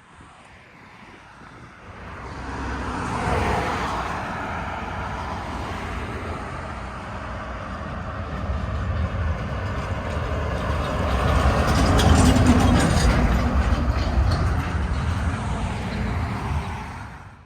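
A heavy truck driving past, its engine rumbling louder as it approaches, loudest about twelve seconds in, then easing before the sound cuts off suddenly near the end.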